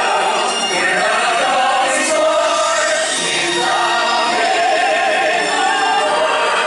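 Stage-musical number: several voices singing together over a musical accompaniment, with a steady, unbroken sound.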